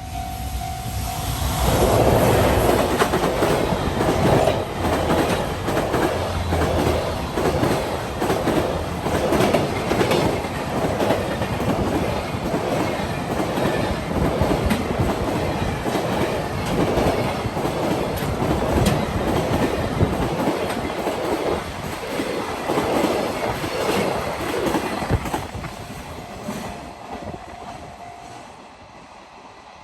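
Freight train passing at speed, its wagon wheels clacking in a steady rhythm over the rail joints for about 25 seconds before fading away. A level-crossing alarm's steady tone sounds at the start until the train drowns it, and again near the end until it stops.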